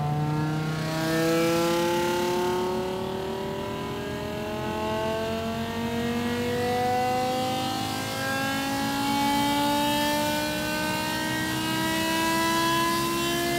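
BMW M5 E61's 5.0-litre V10 at full throttle on a hub dyno, revs climbing steadily and smoothly in one gear toward about 8,000 rpm.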